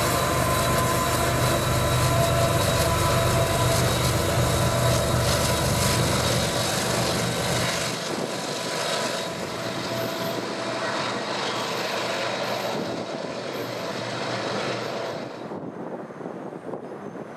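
Freight train passing at close range: the diesel locomotive's heavy low rumble, with steady high-pitched tones over the rail noise. About eight seconds in the sound changes abruptly to a softer, more distant train noise without the rumble, and it drops again near the end.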